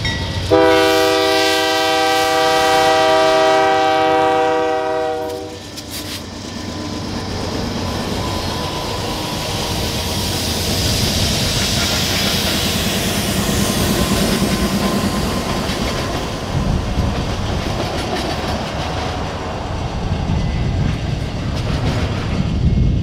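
Lead CN diesel locomotive's multi-note air horn sounding one long steady blast for about five seconds, then the diesel locomotives of a five-unit lashup run past under power, followed by loaded double-stack container cars rolling by with a heavy rumble.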